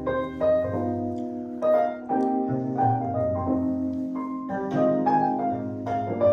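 Piano-led instrumental music played back through Klipsch La Scala horn loudspeakers driven by a Decware SE84UFO2 tube amplifier, with a run of notes over a held low bass.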